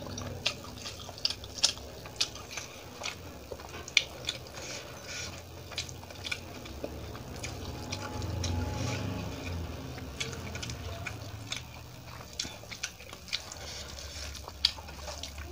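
Close-up eating sounds: chewing a mouthful and fingers mixing rice with curry on a steel plate, heard as many sharp, irregular clicks.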